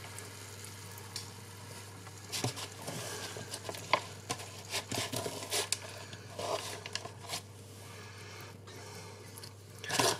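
Raw marinated chicken wings handled and laid in a steel pan, and leftover marinade with pumpkin seeds scraped out of a plastic tray with a utensil: scattered soft taps, scrapes and wet squelches over a low steady hum.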